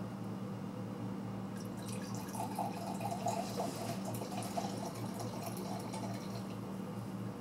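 Red wine poured from a glass bottle into a stemmed wine glass, a gurgling liquid pour starting about two seconds in and lasting about five seconds. A steady low hum sits underneath.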